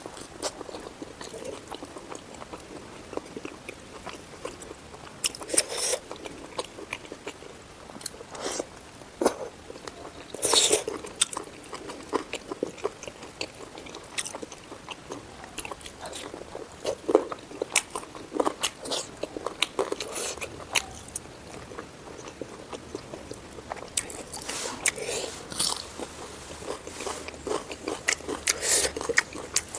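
Close-miked eating of pork curry: irregular chewing and crunching mouth sounds, with louder bites every few seconds.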